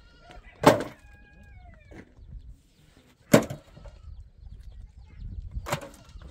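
Stones tossed one at a time into a steel wheelbarrow, landing with three loud clatters about two and a half seconds apart.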